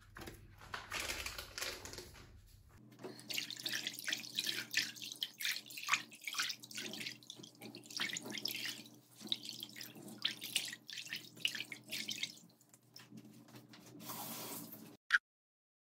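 Water running from a tap into a sink, with irregular splashes and knocks. The sound changes abruptly about three seconds in and again near the end.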